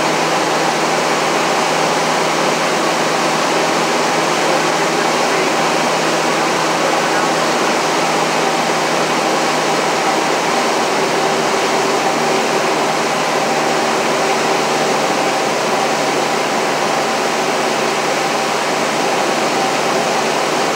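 Steady drone of a light piston airplane's engine and propeller, heard inside the cockpit in level flight: a few constant humming tones over a wash of rushing air.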